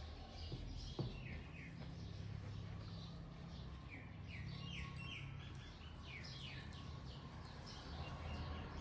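Small birds chirping, a steady run of short quick calls, over a faint low hum, with one sharp click about a second in.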